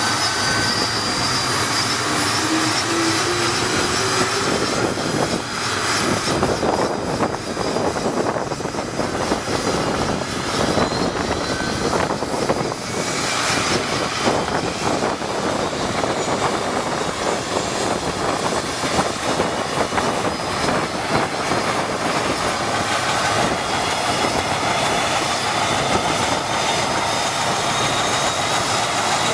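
Mi-8 helicopter's turbine engines starting up on the ground: a loud, steady jet-like whine and rush, with a short rising whine a few seconds in, as the main rotor begins turning and gathers speed.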